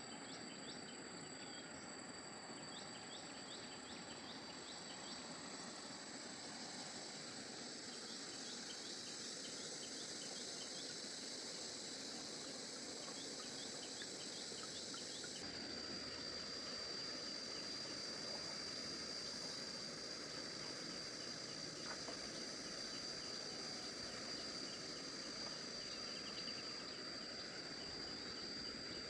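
Outdoor insect chorus: a steady high-pitched drone with rows of rapid chirping over a faint background hiss. About halfway through the drone jumps abruptly to a slightly different pitch and carries on.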